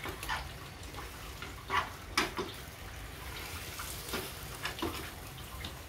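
Food sizzling in a frying pan, with a scatter of short, light clicks and taps of a utensil against the pan.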